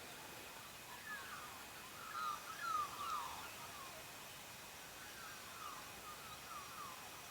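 A bird calling in two bouts of short, quick, downward-sliding notes over a faint outdoor hiss.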